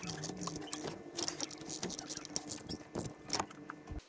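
Irregular light clicks and small metallic rattles of hand tools and fittings as the bolts of a plastic thermostat housing are snugged down by hand, over a faint steady hum.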